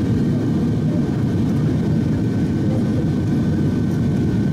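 Boeing 737-800 cabin noise heard from a window seat over the wing on approach, flaps extended: a steady low roar of airflow and CFM56 jet engines, with a faint steady high whine.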